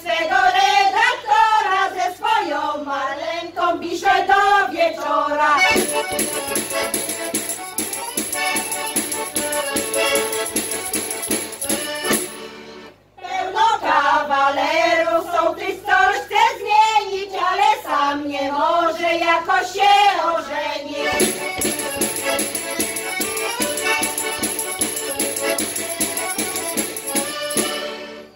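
A women's folk group sings a Polish folk song, with accordion interludes between the verses. Singing at the start, accordion about six seconds in, singing again from about thirteen seconds, then accordion again from about twenty-one seconds.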